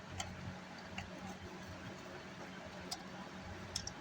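A few faint, scattered metallic clicks from a screwdriver and screws as a car amplifier's case is taken apart, over a steady low hum.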